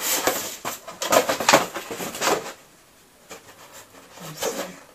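Cardboard box and packaging rustling and scraping as a plastic mask on its cardboard backing is handled and lifted out, in a run of bursts over the first two and a half seconds and a shorter bout of handling near the end.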